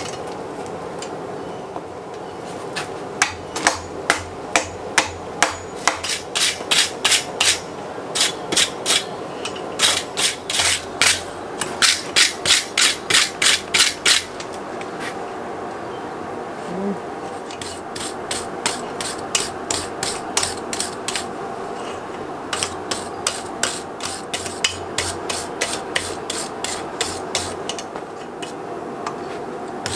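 Hand wire brush scrubbing a hot-forged iron drawer handle on the anvil in quick back-and-forth strokes, about two or three a second, in two runs with a pause near the middle.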